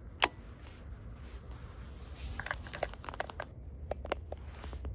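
Handling of a fishing rod and spinning reel during a cast: one sharp click just after the start, then a run of small clicks and ticks about halfway through and again near the end.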